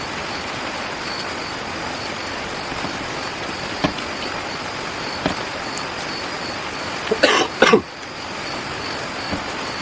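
Steady background hiss, with a few faint clicks and a short, louder burst of noise a little after seven seconds in.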